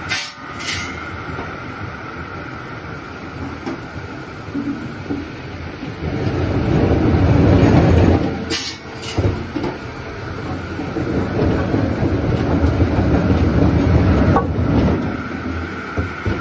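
A large belt-driven circular saw for cross-cutting logs runs steadily. It swells into a louder rumbling stretch through the middle, with a few sharp clacks near the start and around the middle.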